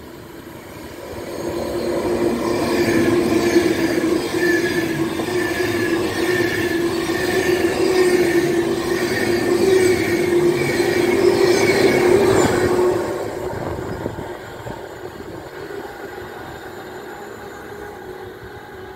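Express passenger train running through the station at speed. It builds to a loud rush with a steady hum and a higher whine, then drops away suddenly about two-thirds of the way in.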